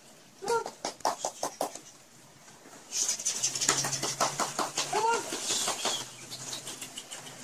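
Rottweiler puppies at play: two short yelps, a little under a second in and about five seconds in, over scuffling and rustling that gets louder about three seconds in.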